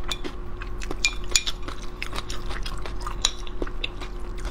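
A metal spoon stirring wet pickled vegetables in a glass bowl, clinking against the glass: a run of small, irregular clicks.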